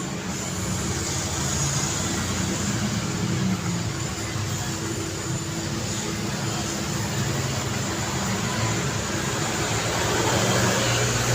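Steady road traffic: cars and motorbikes passing with engine hum and tyre noise, a deeper engine sound growing louder near the end as a vehicle comes closer.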